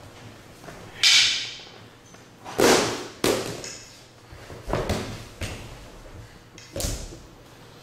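A string of about five sharp thuds and slaps on gym mats during a stick-disarm takedown drill, as bodies and hands hit the mat; the loudest comes about a second in.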